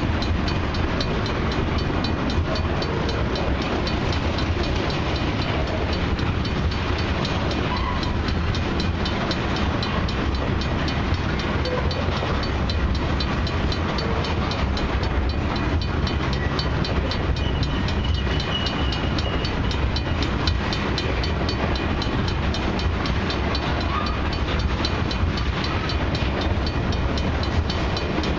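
Loaded crude oil tank cars of a long freight train rolling steadily past, their wheels clicking rapidly over the rails at a grade crossing. A faint, brief high squeal comes about two-thirds of the way through.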